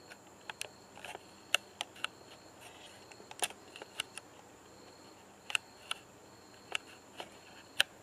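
A paper banknote handled in the fingers: about a dozen scattered, irregular sharp clicks and crinkles, over a faint steady high-pitched whine.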